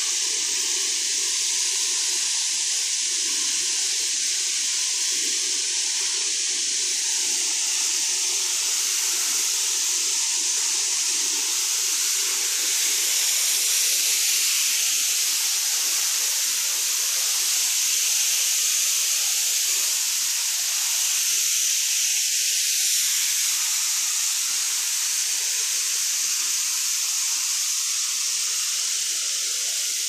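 Waterfall's falling water making a steady, unbroken rushing hiss.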